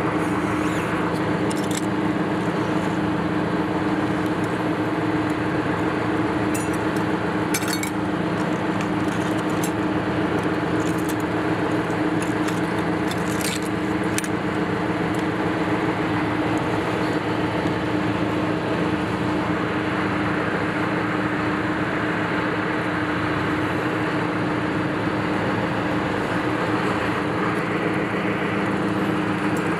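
Tractor engine idling steadily at constant speed, with a few light clinks over it.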